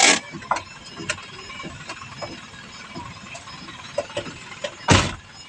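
Scattered sharp clicks and knocks, with two loud bumps, one right at the start and one near the end.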